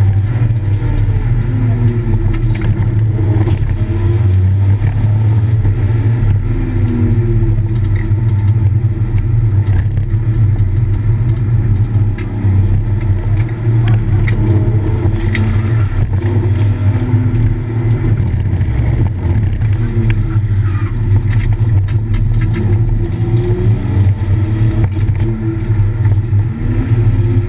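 BMW E36 engine heard from inside the cabin, driven hard on a track: revs climb and drop again and again through gear changes under a steady low drone. Occasional short clicks and rattles are heard over it.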